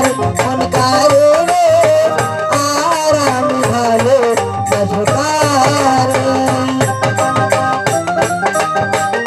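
Bangladeshi folk-song band playing: a barrel drum (dhol) beats a quick, dense rhythm under a harmonium-style keyboard, with a wavering melody line over the first seven seconds or so, after which held chords carry on with the drum.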